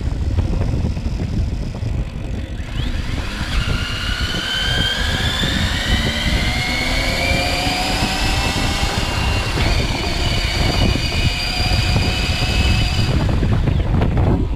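Electric bike's CYC X1 Pro mid-drive motor whining under throttle, a high whine that rises in pitch as the bike accelerates, then holds steady before it stops near the end. Heavy wind rumble on the microphone runs underneath throughout.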